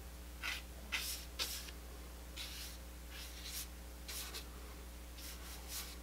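A large brush dragging oil paint across paper in a series of short, soft swishing strokes, over a faint steady hum.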